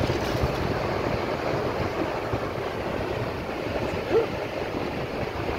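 Surf washing steadily on a beach with wind on the microphone, and water splashing as it is poured onto wet sand right at the start. A short voice-like sound about four seconds in.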